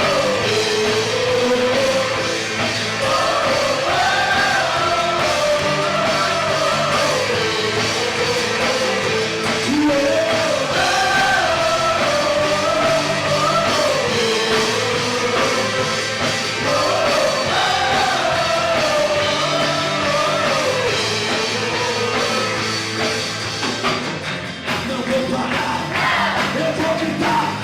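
Rock-style worship band music: a lead melody glides up and down over steady held chords, with a brief dip in level about 24 seconds in.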